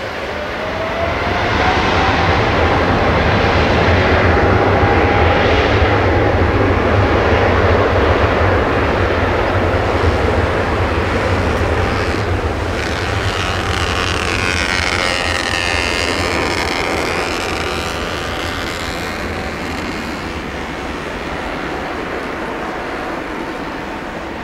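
Boeing 777-200ER's twin jet engines at takeoff thrust on the takeoff roll: a deep rumble and a rising whine that build in the first couple of seconds, then a roar with a sweeping, phasing hiss that slowly fades as the airliner accelerates away.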